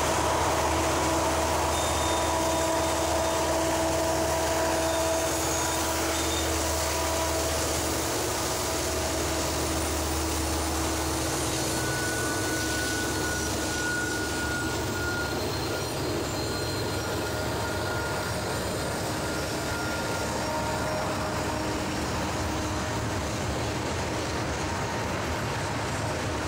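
Norfolk Southern freight train passing close by: the diesel locomotives (SD80MAC, SD70 and a Dash 9) go past with a low engine rumble that fades about eleven seconds in, leaving the steady rolling noise of covered hoppers and tank cars on the rails, with faint thin squealing tones from the wheels.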